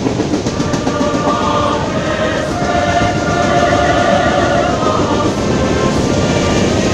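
Freight train cars rolling past close by: a steady loud rumble and rattle of steel wheels on rail, with some clicking over rail joints. Several steady pitched tones sound over the rumble, strongest around the middle.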